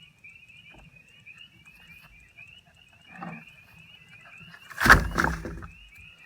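A steady run of rapid high chirps repeating several times a second, with a short sound about three seconds in and a loud thump and clatter about five seconds in.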